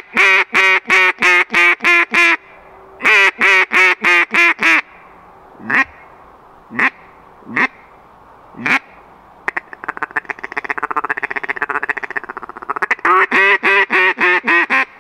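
ZINK ATM double-reed duck call blown in a calling sequence. It opens with a loud hail call, a fast run of quacks in two bursts, then gives four well-spaced single quacks. About two-thirds in it breaks into a rapid ticking feeding chuckle, then finishes with another run of quacks.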